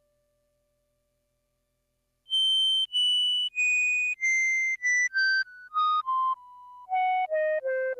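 Suiko ST-50 koto synthesizer playing a descending run of about a dozen single high notes, starting about two seconds in. Each note is short and stops abruptly, and the run speeds up towards the end.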